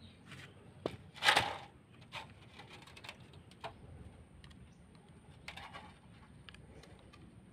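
Scattered light clicks and taps, with one brief louder scrape about a second in, as a heated sickle tang is pushed down into its wooden handle with the handle end braced on a brick.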